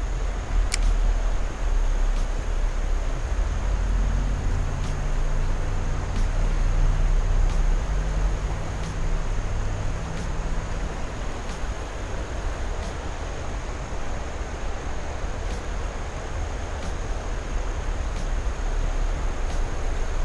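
Steady rumble and hiss of wind buffeting the microphone outdoors, with a thin, steady, high-pitched tone above it and a few faint clicks.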